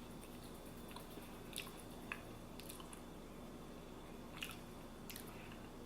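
Quiet chewing of food close to the microphone, with a few faint, scattered wet mouth clicks.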